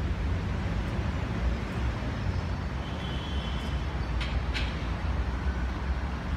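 Steady low rumble of outdoor background noise, with a brief faint high tone about halfway through and two short sharp ticks just after.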